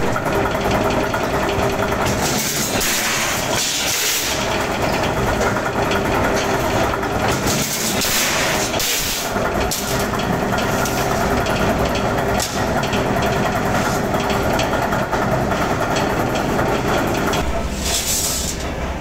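Spoon-making factory machinery running steadily, with a hissing noise that swells several times.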